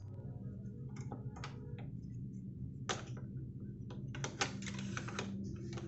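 Plastic clicks and clacks from handling a Sony CFS-2025 radio cassette player, a few single clicks and then a quick cluster near the end, over a low steady hum.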